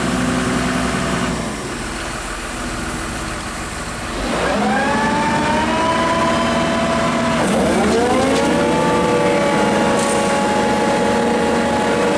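Hyundai R140W wheeled excavator's diesel engine running. It drops back to a lower, quieter speed about a second in, then twice sweeps up to a steady higher pitch, about four seconds in and again midway.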